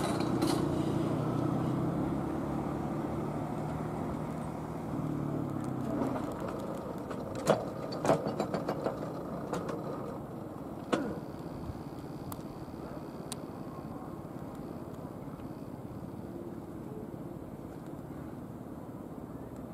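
Ex-JR 107 series electric multiple unit moving slowly through the depot yard, a steady hum from its electrical equipment fading as it draws away. Around the middle come a sharp clank, a quick rattling run of clanks, and one more clank as its wheels cross the points.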